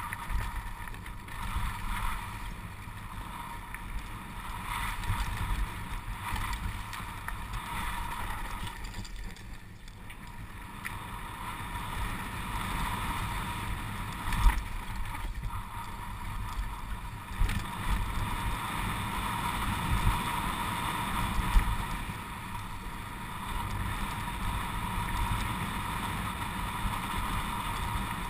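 Downhill mountain bike rolling fast over a dirt and stony trail: a steady rumble and rattle from the tyres and the bike, with wind noise on the microphone and a few sharp thumps as it hits bumps.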